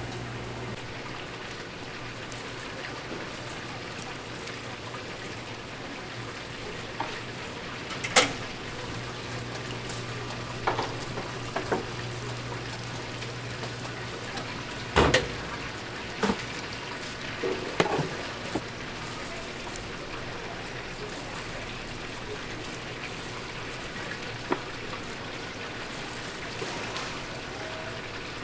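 Chicken frying in hot oil: a steady sizzling hiss, broken by a few sharp knocks, the loudest about halfway through. A low hum runs under it for the first half.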